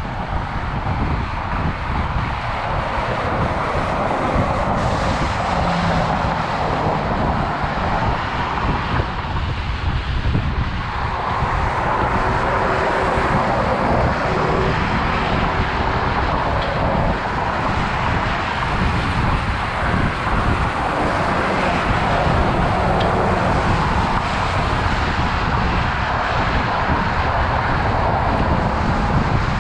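Wind rushing over the microphone of a bike-mounted action camera while cycling along a road, with road traffic rumbling past. The rush swells and fades every few seconds.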